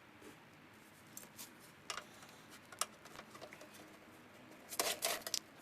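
Scattered sharp clicks and clinks of small metal parts and hand tools during hand dismantling of a VCR, a few single clicks, then a quick cluster of them near the end.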